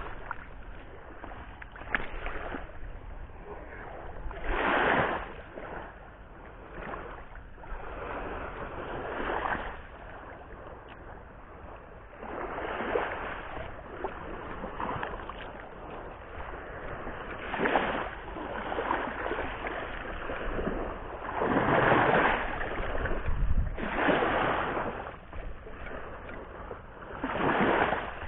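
Sea waves breaking and washing up the shore, swelling into a louder surge every few seconds.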